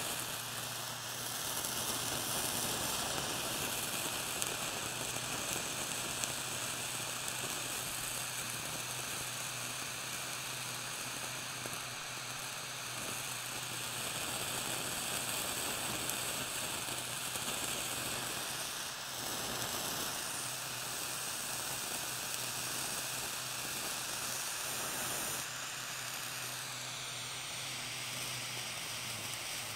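Butane micro torch flame hissing steadily against blue cheese, which sizzles and bubbles as it melts.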